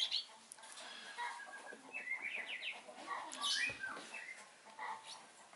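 Baby squirrels (tupai celemes) squeaking, a string of short high chirps with a quick run of rising chirps around the middle.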